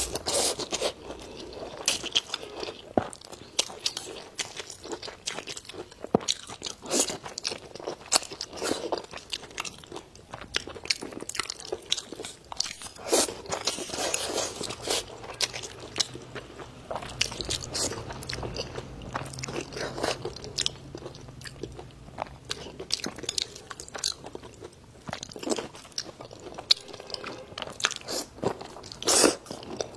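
Close-miked eating: a person biting and chewing crunchy food, with irregular crisp crunches and wet mouth sounds.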